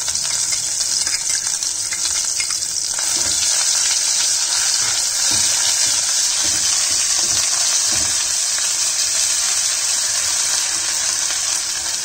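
Ground roasted masala paste, just added to hot oil in a kadhai, sizzling steadily as it fries, with a spoon scraping and knocking against the pan as the paste is stirred and spread. The sizzle grows a little louder a few seconds in.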